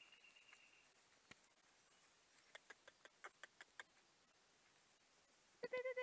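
Six-week-old Cardigan Welsh Corgi puppies at play: a quick run of short, faint squeaks midway, then a loud, high-pitched puppy yelp near the end.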